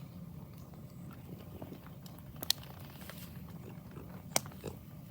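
Campfire burning: a steady low rumble with two sharp pops of the burning wood, one about halfway through and one near the end.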